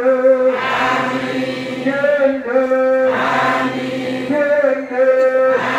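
Islamic devotional chanting: voices singing long held notes in a slow melodic line, each phrase sustained for a second or more with short pitch bends between them.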